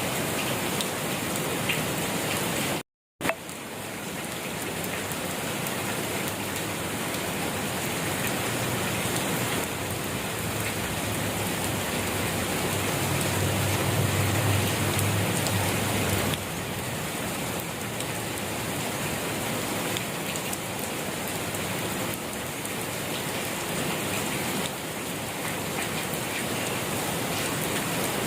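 Steady, gentle rain falling and pattering on surfaces. It drops out abruptly for a split second about three seconds in, and a low rumble swells and fades about halfway through.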